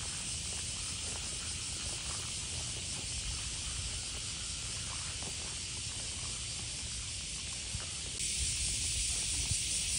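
Steady outdoor background hiss over a low, uneven rumble; the hiss steps up louder about eight seconds in.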